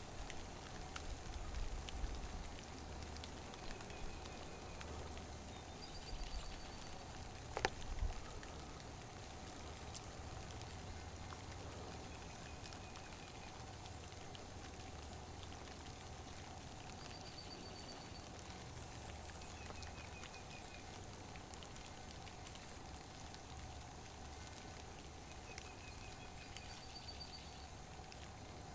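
Faint outdoor ambience: a steady low hiss over a low rumble with a faint steady hum, a few short high trilled chirps repeating every several seconds, and a couple of sharp knocks about eight seconds in.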